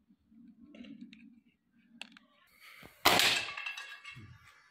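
Air rifle fired once about three seconds in: a sudden sharp report that fades over about a second, after a few light handling clicks.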